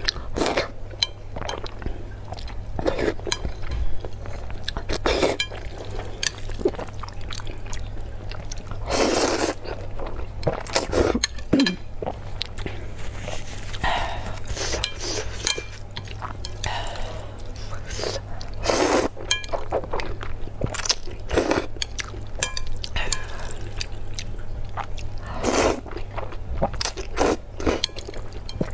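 Close-up eating sounds of spicy instant noodles: wet chewing, lip smacks and irregular short slurps, with occasional chopstick clinks on a glass plate, over a steady low hum.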